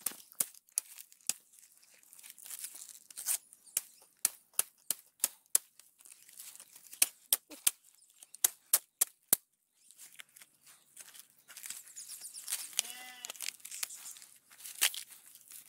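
Fibrous leaf sheaths of a felled coconut palm's crown being torn and snapped apart by hand to reach the heart of palm: a long run of sharp snaps and cracks, then denser crackling and rustling tearing in the last few seconds.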